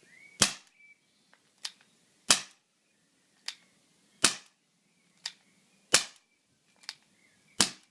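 A pistol firing five sharp snaps, about one every 1.7 seconds, each preceded by a quieter click.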